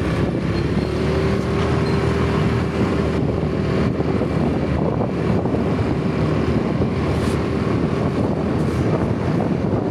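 Motorbike engine running steadily while it is ridden along a road, under a low rushing noise of air and tyres.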